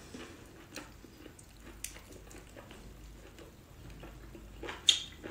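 Close-up wet chewing and squelching of cooked octopus tentacles, with scattered small sticky clicks and one sharper wet smack near the end.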